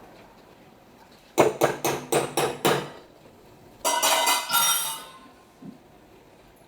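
Metal utensil knocking against a steel cooking pot: about six quick ringing taps in a row, then a longer clinking clatter of metal on metal.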